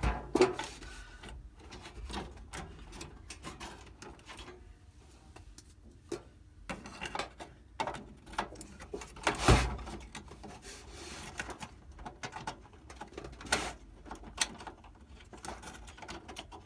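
Scattered clicks, taps and rustles of desktop PC parts being handled while a RAM module is worked on, with a sharp knock about nine and a half seconds in and another near thirteen and a half.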